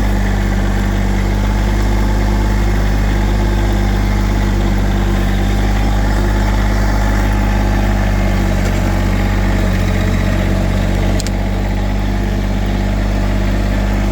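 Subcompact Massey Ferguson tractor's diesel engine running at a steady speed, heard close up from the driver's seat, with one sharp click about eleven seconds in.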